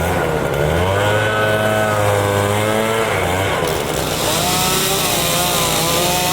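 Chainsaw running at high revs while cutting a large branch, its pitch sagging as the chain loads up in the wood and rising again, twice.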